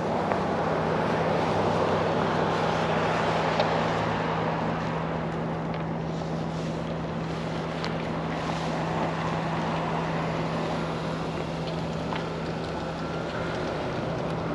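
Steady outdoor rushing noise with a constant low hum underneath.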